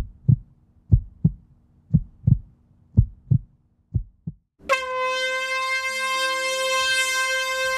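Music soundtrack: a low double thump, like a heartbeat, repeats about once a second, then a little over halfway through a held bright tone comes in over changing low notes.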